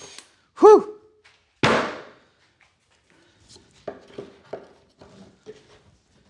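A sharp exhaled 'whew', then a single heavy thunk about a second later, followed by a scatter of light knocks and taps from wood and tools being handled.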